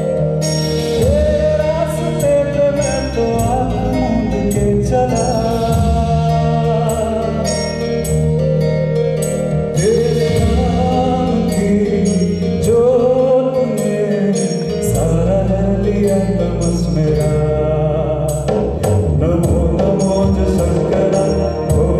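Live amplified song: a man singing into a microphone, with a woman singing with him near the end, over electronic keyboard accompaniment with a steady beat.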